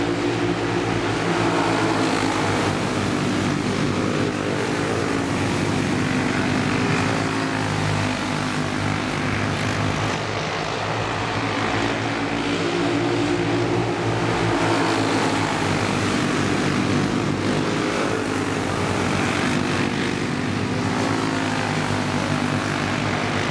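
Several racing kart engines running hard together as a pack of karts laps the track, a buzzing engine note whose pitch rises and falls with their speed through the corners.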